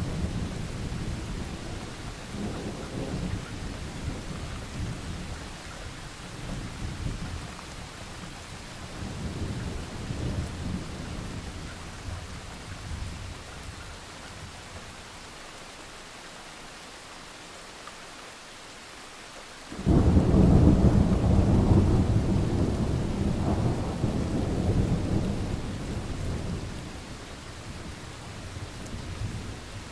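Thunderstorm: deep rolling thunder over a steady hiss of rain. It eases to just the hiss for a few seconds, then a sudden loud thunderclap about two-thirds of the way in rumbles on and slowly fades.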